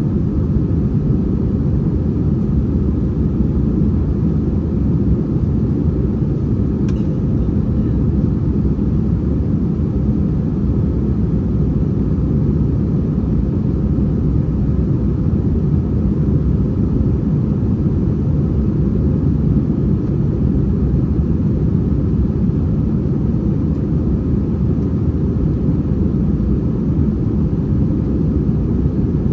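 Steady cabin drone of an Airbus A321-231 in flight, from its IAE V2500 turbofans and the airflow over the fuselage, heard from inside the main cabin. The drone is deep, even and unchanging.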